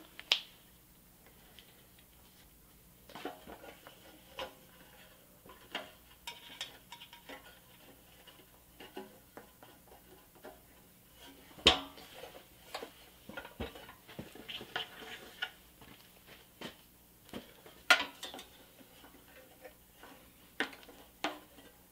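Small clicks, taps and light rubbing as whitewall inserts and chrome hubcaps are pressed by hand onto a Tonka toy truck's rear wheels. There are two sharper clicks, one about halfway through and one later on.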